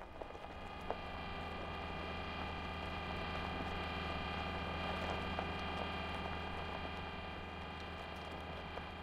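A steady droning hum made of many held tones layered over a low rumble, slowly swelling and easing, with a few faint clicks.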